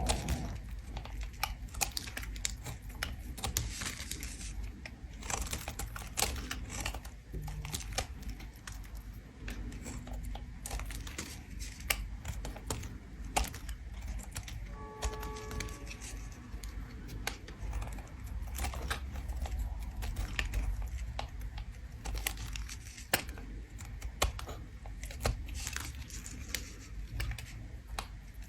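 Bar of soap being scraped with a tool: a dense run of irregular scraping and crackling clicks.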